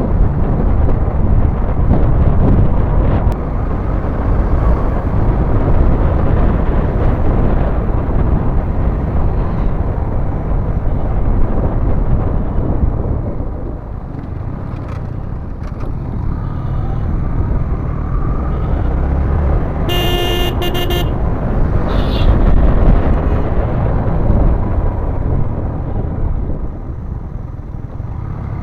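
Yamaha MT15 motorcycle on the move: a steady low rush of engine and riding noise, with a vehicle horn honking for about a second about two-thirds of the way in.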